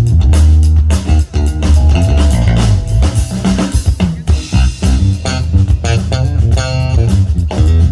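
Live band playing an instrumental funk tune: electric bass line, electric guitar and drum kit.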